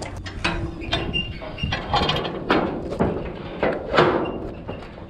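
Metal gate latches being worked, a series of clanks and rattles about two a second, with faint metal squeaks.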